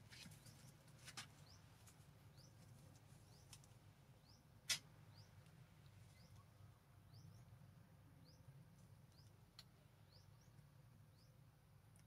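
Near silence with faint, short rising high chirps repeating about once a second, and one sharp click a little under five seconds in.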